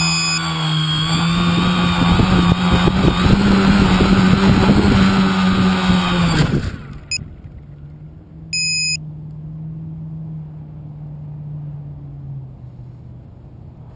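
Tricopter's three 2210N 1000kv brushless motors spinning 9047 propellers: a loud, steady multi-pitched whine that wavers slightly, then drops off sharply about six and a half seconds in as the craft comes down onto the grass. About two seconds later there is a short electronic beep, and a faint motor hum fades out near the end.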